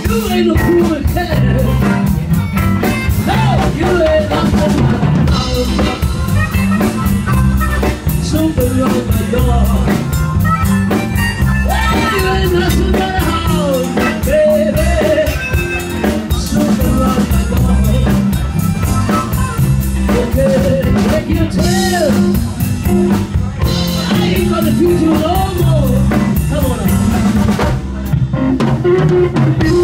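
Live blues band playing an instrumental passage on electric guitars, bass guitar and drum kit, with the drums prominent and bending melodic lines above them.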